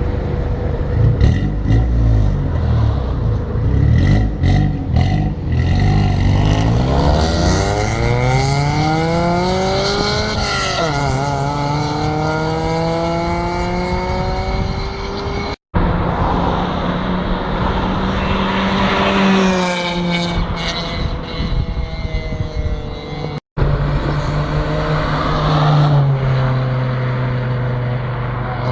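Honda D16A four-cylinder engine running through a cheaply made Chinese exhaust system. The revs climb and fall, giving a harsh exhaust note that the owner calls very nasty. The sound cuts out briefly twice.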